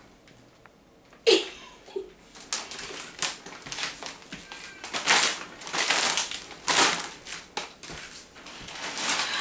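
Plastic chip packets and a plastic shopping bag crinkling and rustling in short, uneven bursts as they are handled and rummaged through. It begins with a sharp bump about a second in.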